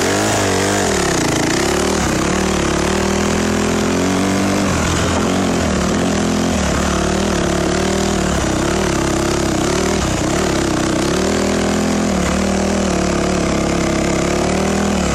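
Honda CRF150R dirt bike's four-stroke single-cylinder engine under way in gear, its pitch rising and falling over and over as the throttle is opened and eased.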